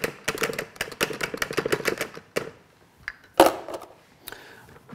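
Wire whisk beating soft vegan butter in a glass bowl, clicking rapidly against the glass at about eight strokes a second, then stopping about two seconds in. About a second later comes one sharp knock, the loudest sound.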